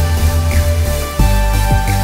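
Background music: an electronic-style track with held notes over a bass line.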